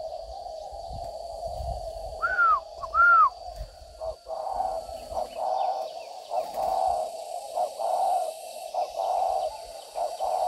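Spotted doves cooing: a steady low cooing that breaks into repeated coo phrases from about four seconds in. About two seconds in come two short, loud, arching chirps from a bird.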